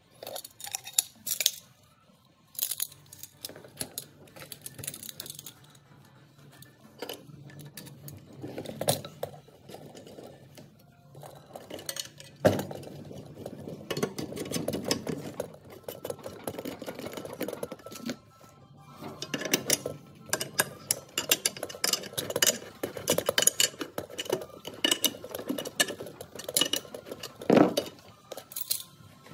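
Metal parts of an Asgard Tools drywall compound pump clinking and clacking in quick, irregular knocks as they are handled and fitted together by hand, with a few sharper knocks, the loudest near the end.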